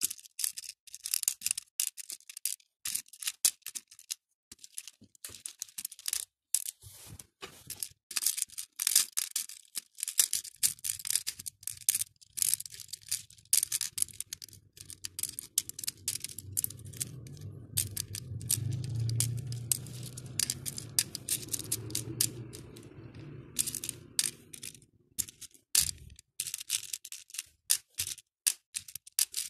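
Acrylic and plastic beads clicking and clattering against each other and the clear plastic compartment tray as fingers pick through them and drop them into compartments: many quick, irregular clicks. For about ten seconds in the middle a low rumble sits under the clicking.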